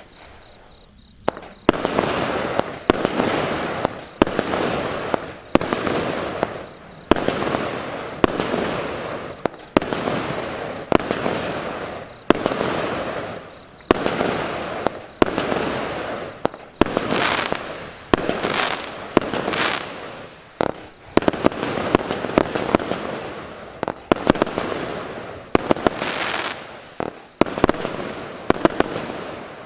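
Cube Fireworks Zeus 105-shot compound barrage firing: a sharp shot about every second, each followed by a crackling hiss that fades away, with quicker volleys of several shots in the last third.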